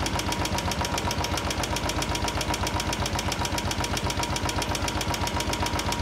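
Royal Enfield Classic's single-cylinder engine idling hot with a loud, rapid, even tik-tik tappet ticking. The hydraulic tappets have stopped working: the hot, thinned oil no longer lets them hold pressure.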